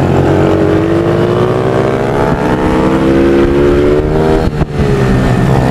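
Small supermoto pit bike's engine under hard acceleration, its pitch rising steadily for about three and a half seconds, with a short break about four and a half seconds in, like a gear change or throttle lift, before it pulls again.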